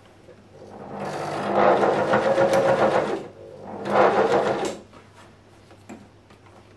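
Electric sewing machine stitching fabric in two runs: a longer one of about two and a half seconds that picks up speed at the start, then a brief run of about a second.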